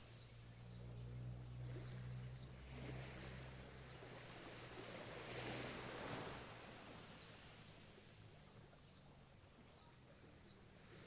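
Ocean waves washing ashore, faint: one wave swells and breaks about halfway through, then the wash dies down. A faint low steady hum lasts for the first few seconds.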